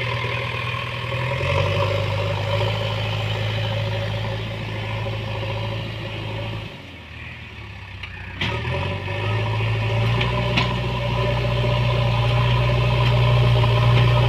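JCB backhoe loader's diesel engine running steadily. About seven seconds in it drops away for a second or two, then picks up again with two short knocks and runs louder toward the end.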